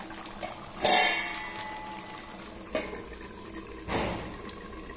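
A stainless-steel lid is set down on an aluminium kadai of simmering chicken gravy about a second in, a sharp clang with a brief metallic ring, over the low bubbling of the gravy.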